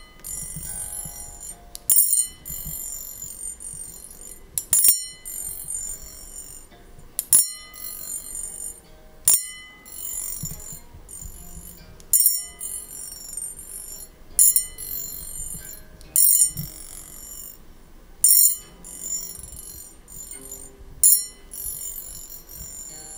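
Ear-cleaning tuning fork struck about every two to three seconds. Each strike is a sharp metallic clink followed by a high ringing tone that fades, and the fork is held to the feather in the ear so that the vibration tickles it.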